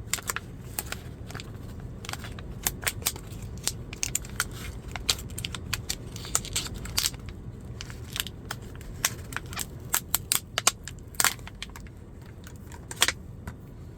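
Retail packaging of a ratcheting screwdriver being pulled and torn open by hand: irregular crinkling crackles and sharp clicks.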